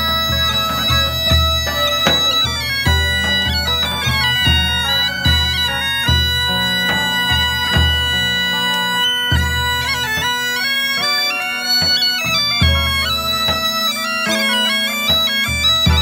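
Bagpipes playing a melody over a held drone, with hand-played frame drums and a large drum beating a steady rhythm of about two strokes a second.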